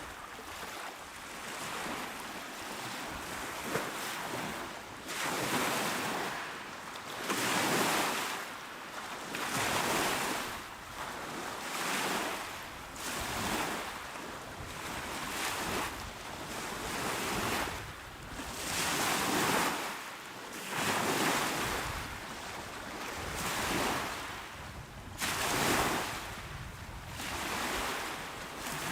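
Calm, small waves breaking on a shore one after another, each a rush of water that swells and falls back, roughly every two seconds.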